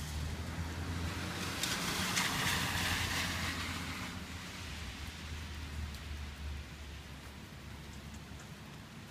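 Steady rain falling on a wet street. A louder rush swells about two seconds in and fades away by about four seconds.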